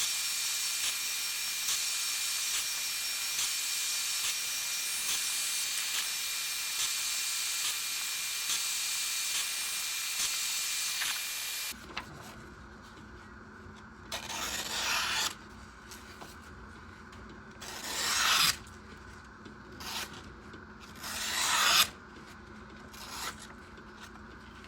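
A power sander or grinder running with a steady hiss, a fixed whine and a faint regular tick, which stops abruptly about halfway. Then come five separate abrasive strokes of the knife blade being rubbed against an abrasive during sharpening, each swelling in loudness and breaking off.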